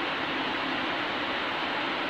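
Steady, even hiss and hum of a stationary electric train's cooling fans running at the platform, with no horn, clanks or wheel noise.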